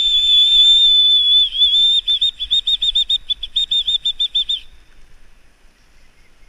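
A whistle blown loud and close: one long held blast of about two seconds, then a quick run of short toots, about six a second, that stops suddenly about two-thirds of the way through.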